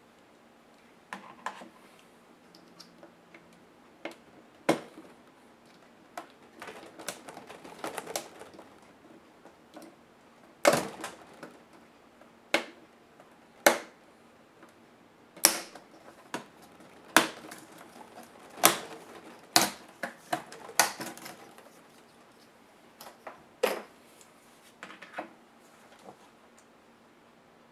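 Sharp plastic clicks and snaps, about a dozen at irregular intervals, as the plastic hinge cover strip above a laptop keyboard is pried loose and its clips pop free.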